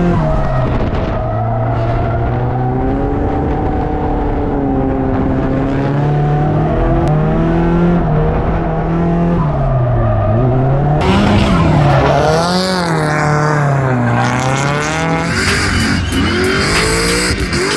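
Nissan S13 drift car's engine running hard, its revs rising and falling over and over, with tyres squealing and skidding from a little past halfway as the car drifts.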